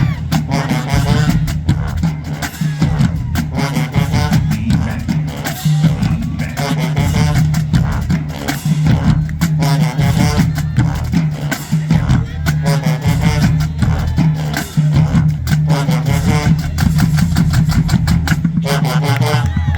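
HBCU marching band playing at full volume: sousaphones holding a heavy low bass line under the horns' melody, with a steady pounding of drums.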